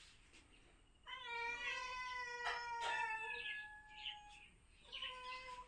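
Domestic cats meowing to be fed: one long, slightly falling meow starting about a second in and lasting about three seconds, then a shorter meow near the end. Two sharp clicks come in the middle of the long meow.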